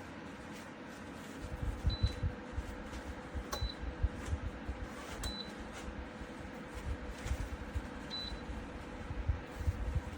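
Four short, high beeps a second or more apart from a QEXREED 2000 W PTC electric fan heater's touch control panel, the confirmation beeps as its buttons are pressed. Under them run a faint steady hum and irregular low thumps.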